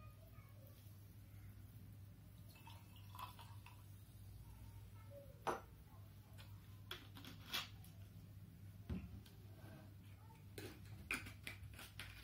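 Scattered light clicks and knocks of bottles and glasses being handled and set down on a wooden table, the loudest about five and a half seconds in, over a faint steady hum.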